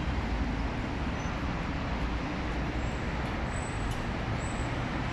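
Steady city road-traffic noise: a continuous low rumble of passing cars and buses with an even hiss over it.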